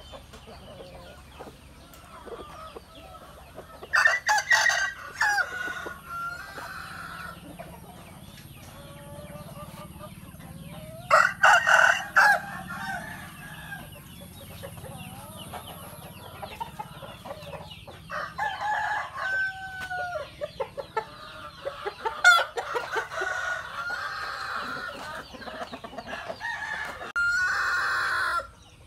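Roosters crowing about five times, each crow lasting a second or two, with hens clucking in between.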